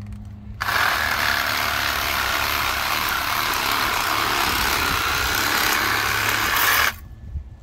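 Cordless power saw running and cutting through woody roselle hibiscus stalks. It starts about half a second in, runs steadily for about six seconds, and cuts off shortly before the end.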